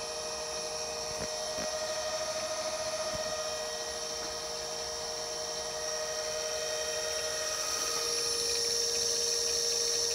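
Electric motor running on a Mitsubishi FR-E560 variable frequency drive set to about 26 Hz, giving a steady electrical whine of several held tones with a high hiss above them, growing slightly louder near the end. The repaired drive is running normally after a power-dead fault.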